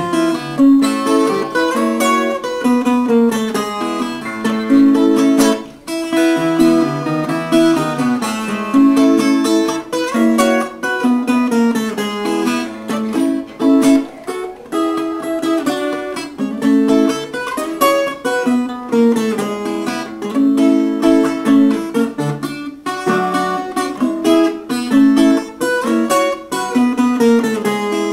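Viola caipira, the Brazilian ten-string folk guitar with its strings in pairs, played solo: a repeating melodic figure, strummed and picked in a steady rhythm.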